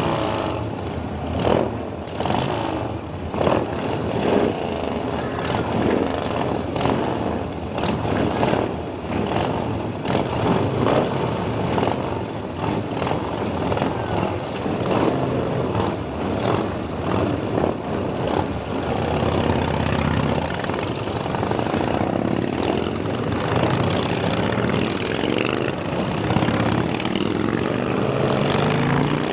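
A group of motorcycle engines running and revving, the sound surging irregularly; in the last several seconds the engine pitch rises and falls.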